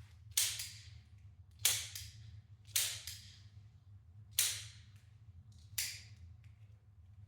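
Western-style double-action blank-firing revolver fired five times, a sharp crack each time, roughly one and a half seconds apart, each shot leaving a short ringing tail.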